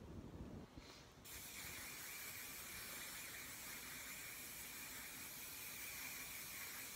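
Can of workable hairspray sprayed onto hair in one long, steady hiss, starting about a second in.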